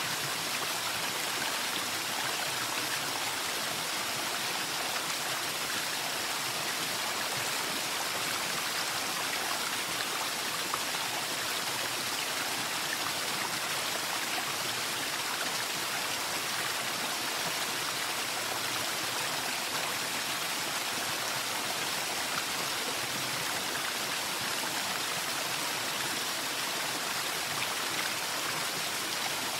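Running water, a steady, even rush like a stream, with no change in level.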